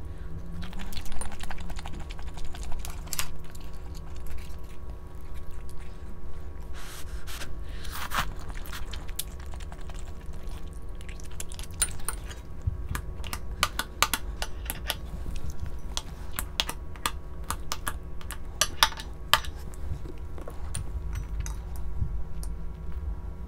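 Irregular light clicks and taps of kitchen utensils and dishes, thickest in the second half, over a steady low hum.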